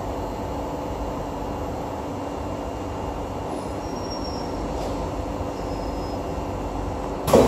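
Interior running noise of an SMRT C151A metro train moving slowly alongside a station platform: a steady rumble with brief faint high squeals around the middle. A sharp thump near the end is the loudest sound.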